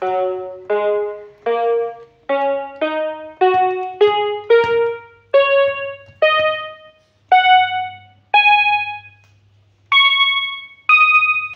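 BIGFUN BF-430A1 toy electronic keyboard sounding single notes one after another, about fourteen of them. Each note starts sharply and dies away, the notes climb in pitch overall, and they come more slowly toward the end.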